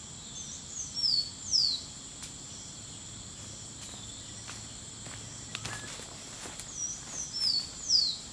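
Steady high-pitched drone of jungle crickets, over which a bird sings a short phrase of three or four quick descending whistles, twice, about six seconds apart.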